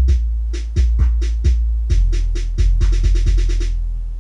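Bass-heavy electronic music played loud through a Starke Sound Sub24 subwoofer, an 8-inch driver with two passive radiators. Deep held bass notes sit under a drum-machine beat, with a quick run of hits about three seconds in; then the drums stop and the bass note fades.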